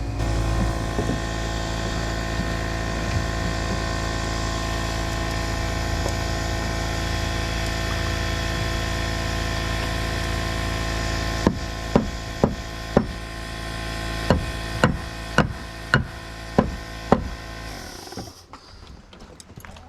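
A machine running steadily with a constant hum, joined by about ten sharp strikes spread over six seconds as nails are driven into framing lumber; the machine stops about two seconds before the end.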